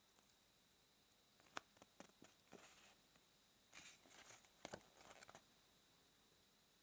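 Faint rustling and crinkling of a printed paper leaflet handled and unfolded by hand: a sharp tick about a second and a half in, then short clusters of rustles around three and five seconds in.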